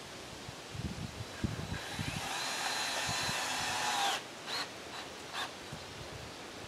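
Power drill driving a screw into a wooden brace for about two seconds, with a steady whine that slows as it stops. Two short blips of the trigger follow. A few soft knocks come before it, as the brace is handled.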